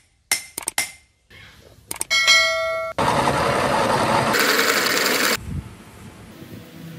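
Hammer blows on hot steel at the anvil, then a ringing metal clang about two seconds in. After that a drill press bores through a steel block for about two and a half seconds, getting brighter near the end before dropping to a softer noise.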